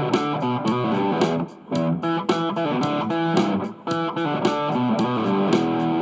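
Electric guitar played with a pick: quick runs of notes and chords, with two short breaks, about one and a half seconds in and near four seconds.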